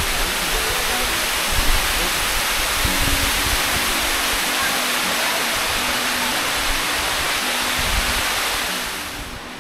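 Waterfall, a steady, loud rush of falling water, fading out near the end.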